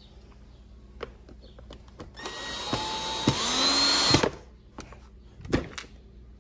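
Kobalt 18V cordless drill driving a screw into a plastic tool housing for about two seconds, its motor whine stepping up in pitch partway through. A few short knocks of handling come before and after.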